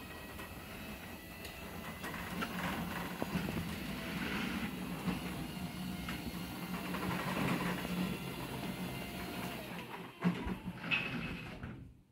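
Wiśniowski MIDO 600 garage door opener running, drawing a sectional garage door up its tracks with a steady hum and rattling. The run ends about ten seconds in with a couple of sharp knocks as the door reaches fully open.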